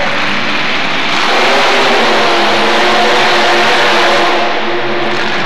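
Mud racing machine's engine at full throttle during a run through the mud pit. It grows louder and climbs in pitch about a second in, then eases off near the end.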